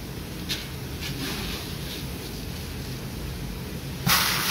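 Green (unroasted) coffee beans poured from a scoop into a plastic bucket: a short, loud rushing hiss near the end. Before it, a faint click and rustle as the scoop is worked into beans in a jute sack.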